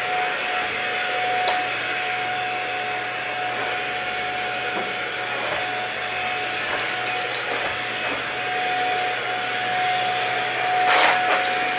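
Corded vacuum cleaner running on a rug with a steady high whine, louder near the end as it comes close.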